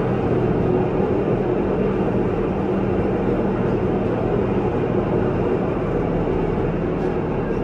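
Steady running noise of the Pilatus Railway's electric cogwheel railcar climbing its rack track, heard from inside the car, with a faint steady hum under it.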